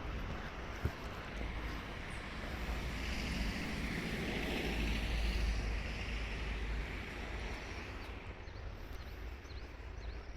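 A vehicle passing by: its rumble and hiss swell for a few seconds, peak about halfway through, then fade away. A single short click sounds just under a second in.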